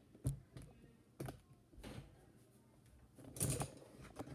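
Handling noise from plastic toy figures: scattered clicks and knocks at uneven spacing, with a louder cluster of knocks about three and a half seconds in.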